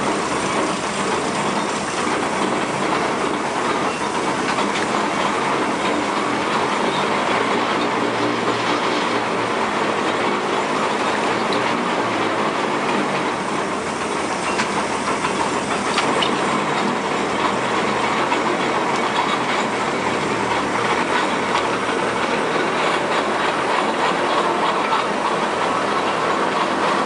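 Steam dragline working: its steam machinery runs with a steady, dense clatter and hiss while the chain-hung bucket is dragged through the dirt and hoisted.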